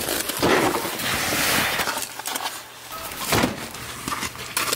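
Rustling of fabric gear bags being handled and lifted, with two sharp knocks later on as gear bumps against the van. A faint low hum runs under the second half.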